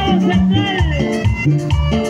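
Upbeat Latin American dance music with a steady bass beat and a high melody line over it.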